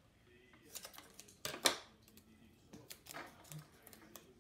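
Paper strips and tape being handled and pressed onto cardboard: a few short rustles and crackles, the loudest about one and a half seconds in.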